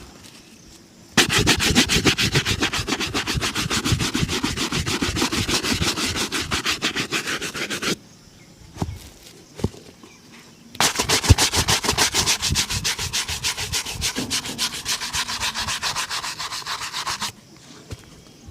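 Shoe being buffed in rapid back-and-forth strokes during a shoe shine. Two long spells of quick rubbing strokes with a short pause and a couple of light taps between them.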